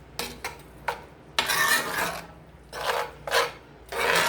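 A utensil stirring sauce in a pan and scraping across the pan's bottom in a run of uneven strokes, one longer stroke about a second and a half in, as grated parmesan is worked into wilted spinach to melt.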